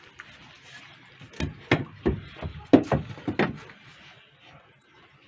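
Wooden cabinet doors and shelves being handled: about six sharp wooden knocks and bumps bunched in the middle, the loudest a little before three seconds in.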